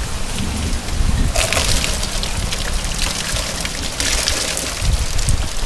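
Steady rain, with rainwater runoff from the roof pouring and splashing into the bowl-shaped lid of a rain barrel. The splashing grows louder about a second in and surges again later.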